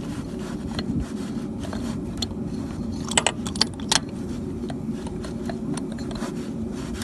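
A few sharp metallic clinks and rattles, bunched about three to four seconds in, from hand tools or parts knocking against metal, over a steady low hum.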